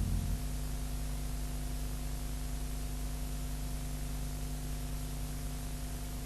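Steady hiss with a low electrical hum, from the background noise of an old video transfer, after the last of the organ music dies away in the first half second.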